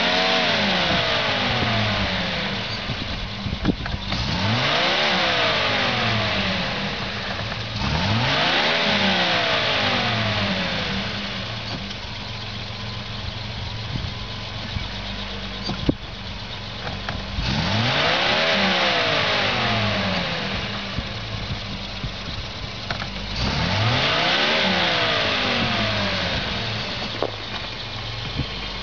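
Volvo C304 6x6 military truck's engine revving up and falling back about five times. A loud rushing hiss swells with each rev. Between the third and fourth rev there is a longer quieter stretch of lower running.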